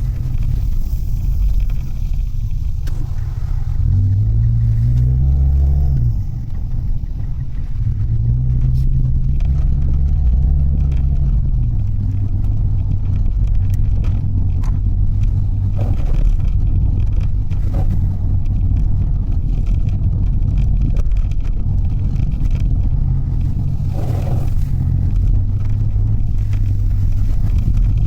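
Mitsubishi Delica driving on the road: a steady low engine and road rumble. The engine note climbs and drops back about four to six seconds in, then holds steadier as the van cruises.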